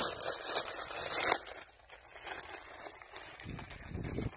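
Clear plastic bag of pak choi crinkling and rustling as it is handled. It is loudest in the first second and a half, then quieter.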